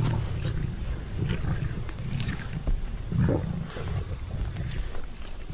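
Several Asiatic lions growling in low, rough, irregular rumbles as they crowd and jostle over a spotted deer carcass. The louder growl about three seconds in is typical of lions competing for space at a kill.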